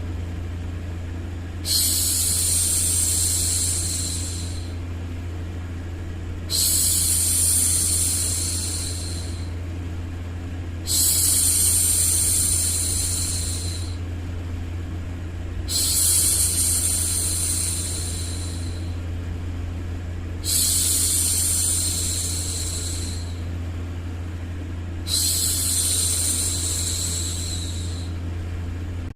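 A woman shushing ('shhh') to hush a baby: six long shushes, each about two and a half seconds, repeating roughly every four and a half seconds over a steady low white-noise hum.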